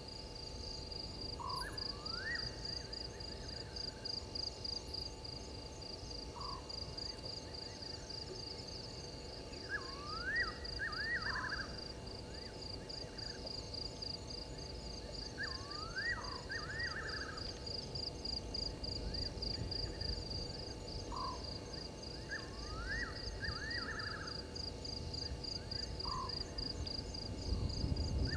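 Night insect chorus, a steady fast high pulsing, with a short animal call of quick rising notes repeating about every six seconds. A low rumble of noise rises near the end.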